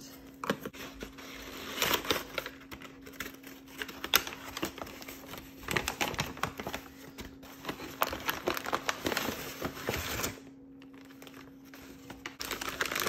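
Crumpled brown kraft packing paper and a newspaper flyer crinkling and rustling as they are pulled out of a cardboard box and handled, in irregular crackles, with a quieter stretch near the end.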